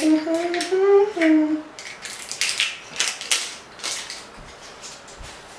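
A woman humming a few rising notes, then a run of clicks, knocks and rattling as jars, lids and other tabletop items are handled and packed into a bag.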